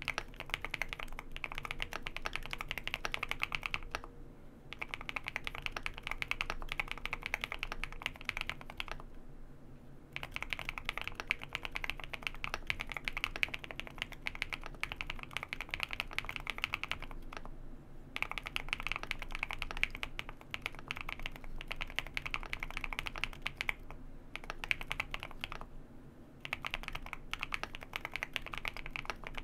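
Fast typing on a Wind Studio Wind X98 mechanical keyboard with JWK Hoshizora linear switches, lubed with Krytox 105/205 mix and filmed: dense runs of keystroke clacks broken by brief pauses every few seconds. The switch has noticeable noise from its contact leaf.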